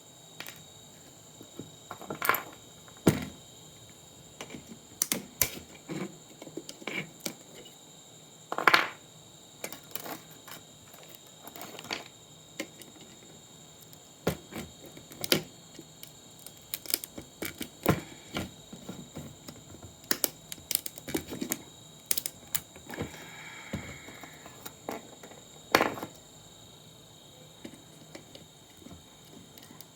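Irregular clicks, taps and knocks of hand tools and plastic and metal parts being handled while an old monitor is taken apart, over a faint steady high-pitched whine.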